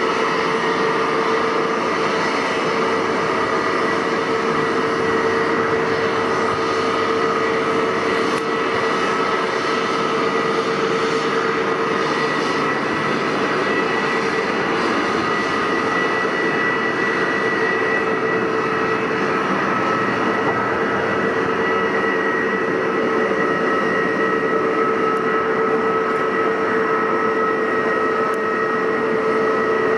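Jet airliner engines running steadily, a constant whine over a rushing hiss, with no rise or fall.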